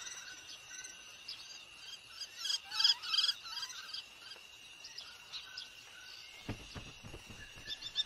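Small birds chirping over a steady high insect drone. A quick run of rapid chirps comes about two and a half seconds in and is the loudest part.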